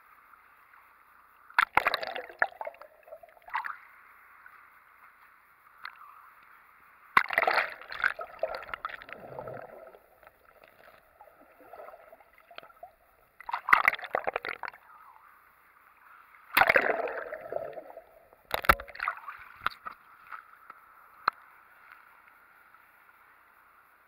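Seawater sloshing and splashing around a GoPro camera at the surface of the surf as it dips under and comes back up: several irregular bursts of splashing over a faint steady hiss.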